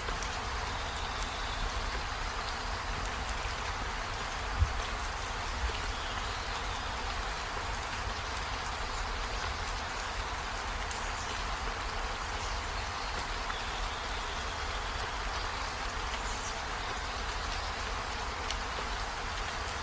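Steady rain falling, an even hiss over a low rumble, with a few faint short high chirps or buzzes. A single sharp thump about four and a half seconds in, and a softer one a second later.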